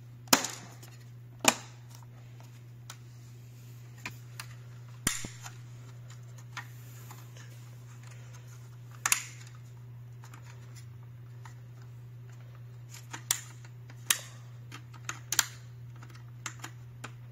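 Sharp, irregular clicks and knocks of hard plastic as a car dash bezel and its trim clips are handled and pressed into place, over a steady low hum.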